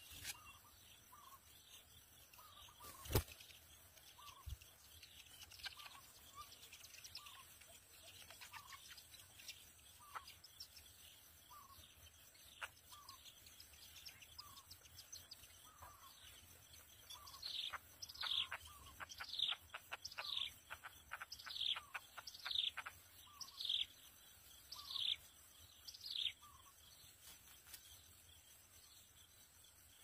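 Birds calling at a nest: a run of loud, sharp, downward-sliding notes, about two a second, for around nine seconds starting a little past halfway, over a faint short note that repeats about once a second. A single sharp click about three seconds in.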